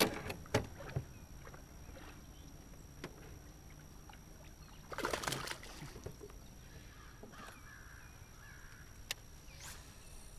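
A few knocks against the aluminium boat at the start, then a short splash of water about five seconds in as the largemouth bass is let back into the lake. A bird calls a few times afterward.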